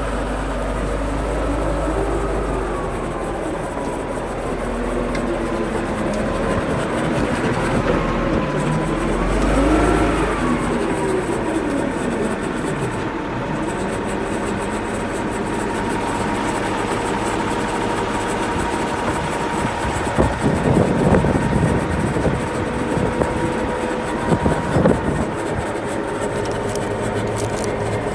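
An engine running, its pitch rising and falling over the first ten seconds and then holding steady, with a few clattering knocks around 20 and 25 seconds in.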